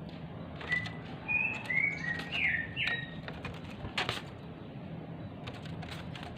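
Oriental magpie-robin (kacer) giving a quick run of short whistled notes in the first half, among sharp clicks and wing flutters from the agitated bird hopping about. A louder knock comes about four seconds in.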